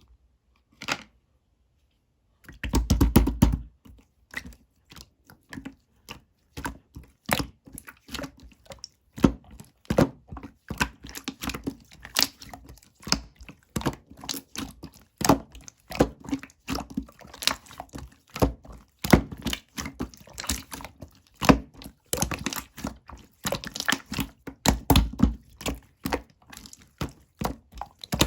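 Slime being played with by hand, pressed, folded and poked, giving a dense, uneven run of small clicks, pops and crackles, with a fuller squelch about three seconds in.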